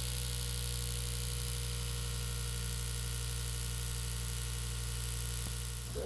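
A steady low hum with many even overtones, unchanging in pitch and level, like a machine or electrical drone.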